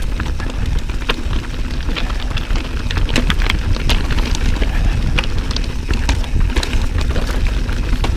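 2019 Santa Cruz Bronson mountain bike rolling fast over chunky rock: tyres crunching over stones and the bike rattling, a constant stream of sharp clicks and knocks over a steady low rumble.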